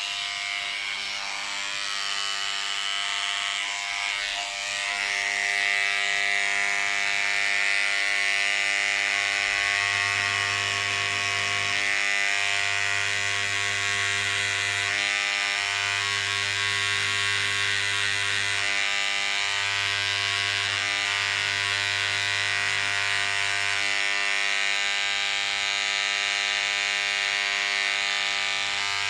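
Small electric tool buzzing steadily while a turquoise stone is set into its bezel, with a low hum that comes and goes every few seconds.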